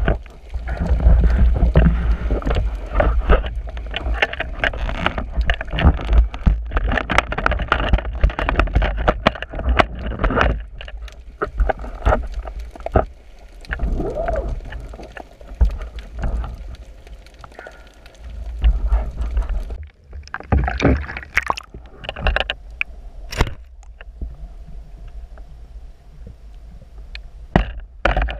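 Water noise heard underwater through a speargun-mounted action camera's housing as the diver swims: irregular gurgling and sloshing over a steady low rumble, busy for the first ten seconds or so, then sparser with scattered knocks and splashes.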